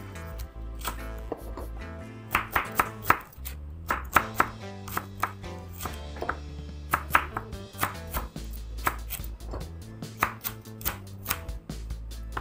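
Kitchen knife slicing shallots on a wooden cutting board: quick, uneven runs of sharp taps as the blade meets the board, a few a second, over soft background music.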